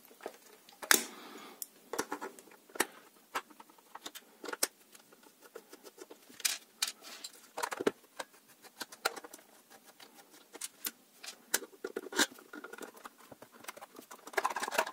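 Irregular clicks, taps and knocks of a handheld multimeter's plastic case being handled as a small screwdriver turns out its back screws and the case is opened.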